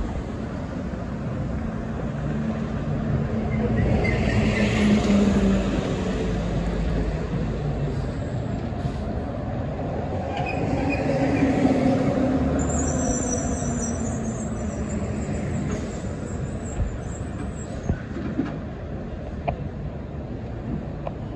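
Street traffic passing: car and truck engines and tyres on asphalt, swelling as two heavier vehicles go by, about four seconds and eleven seconds in. A thin high squeal runs for several seconds after the second pass.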